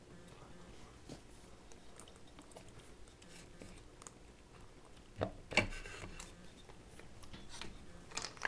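Stuck engine timing cover being worked free by hand and pulled off its gasket: faint rubbing and small clicks, then a short scraping creak about five seconds in as it comes loose, and a click near the end.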